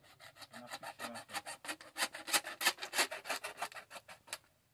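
Quick rasping strokes rubbed on a PVC drain pipe, about five a second, louder in the middle and stopping shortly before the end.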